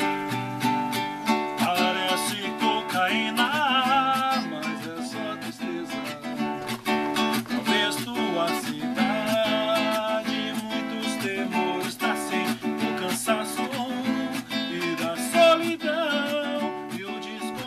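Acoustic guitar playing a song, its chords strummed and picked, with a man's voice singing along in stretches on wavering held notes.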